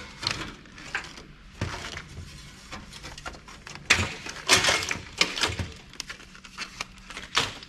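Irregular clicks, knocks and clunks from a hard drive in its caddy and other PC parts being handled and turned over, with a few sharper knocks spread through.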